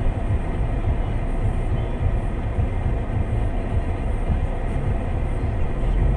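Steady low rumble of a vehicle in motion.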